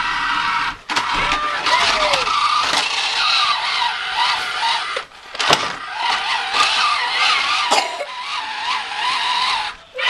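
Remote-control toy car's electric motor whirring as it drives, cutting out briefly a few times as the controls are let go.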